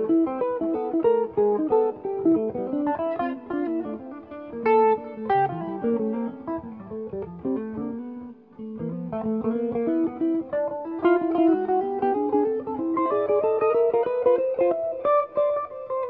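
Two jazz guitars playing a duet, interweaving separate melodic lines in counterpoint with quick plucked notes.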